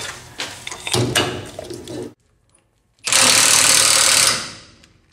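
Metal clunks and knocks as the new pinion gear is worked into the Chrysler 9.25 axle housing. About three seconds in, a cordless impact wrench runs loudly for about a second and a half on the pinion nut, crushing the crush sleeve to set pinion bearing preload.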